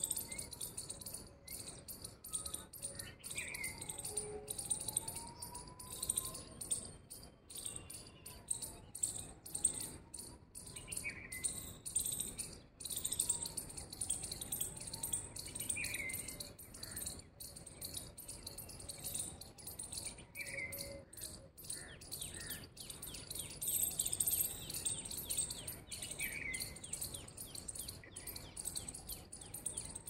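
Many small birds chirping and twittering in a dense, steady chorus, with a short rising call about every five seconds.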